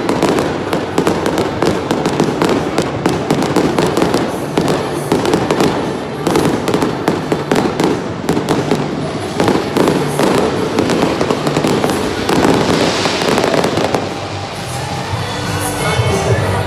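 Fireworks display going off, a dense run of rapid sharp pops and bangs that thins out and dies down about three-quarters of the way through.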